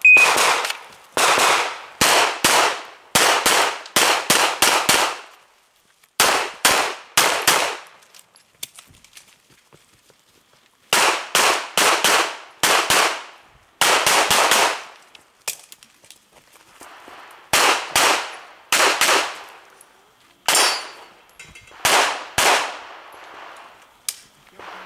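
A shot timer's short high beep starts the run. A pistol follows, fired in rapid strings of two to six shots with short pauses between, as the shooter works through an IPSC-style stage.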